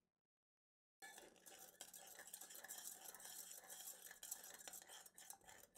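A spoon stirring faintly in a small metal jug of water, scraping and clinking lightly against its sides, starting about a second in. This is the eruption powder and red food colouring being mixed into the water.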